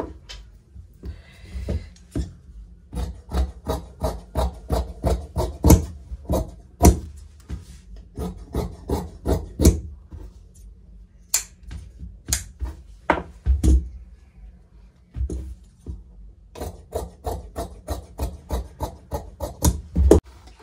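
Tailor's scissors cutting through blouse fabric on a cutting table: a run of sharp snips about two a second, with a short pause partway through before the cutting resumes.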